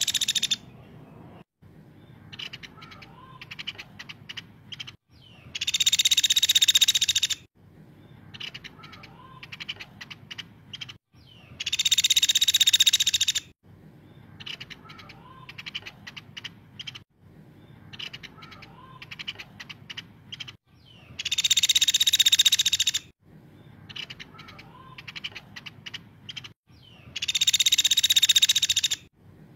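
Caladi (small pied woodpecker) giving loud, high-pitched rattling trill calls, each burst about two seconds long and repeated five times at intervals of several seconds. Fainter quick ticks and soft chirps fill the gaps between bursts.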